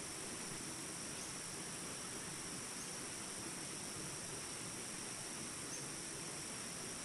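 Small rapids rushing steadily, with a continuous high insect drone over them and a few faint short bird chirps.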